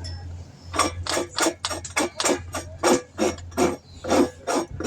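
A hand tool worked against the tire in quick, short, sharp strokes, about four a second, starting about a second in. This is preparation of the puncture area before a patch goes on.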